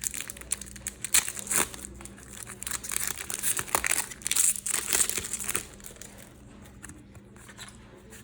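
Crinkling and tearing of a Match Attax trading-card packet's wrapper as it is opened, a dense run of crackles for about five and a half seconds, then quieter rustling.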